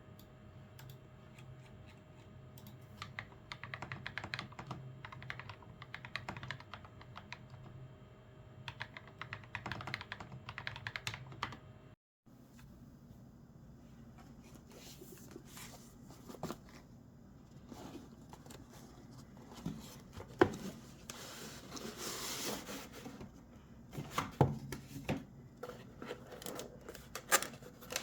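Typing on a mechanical keyboard: bursts of quick key clicks. After a cut about twelve seconds in come scattered sharper clacks and handling noise, with a stretch of rustling in the second half.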